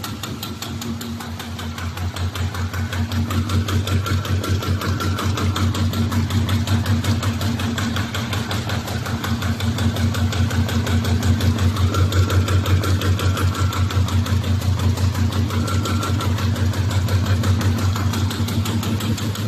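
RZJD G350J flat-bottom paper bag machine running at its top speed of 120 metres per minute: a fast, even mechanical clatter of repeating strokes over a steady hum, growing a little louder over the first few seconds.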